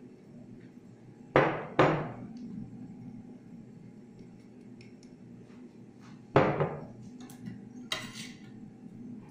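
Bowls knocking and clinking as chopped ingredients are tipped from small bowls into a mixing bowl: two sharp knocks about half a second apart, another about five seconds later, then a brief scrape of a knife on the cutting board near the end.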